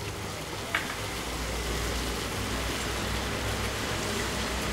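Water in a stainless steel pot coming to the boil: a steady rumble and hiss that grows slightly louder, with one short click about a second in.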